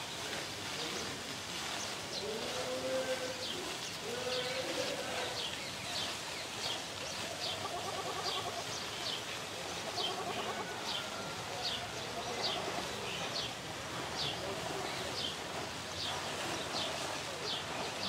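Aviary ambience: a chorus of birds chirping, short high falling notes every half second or so, with lower wavering calls among them a few times.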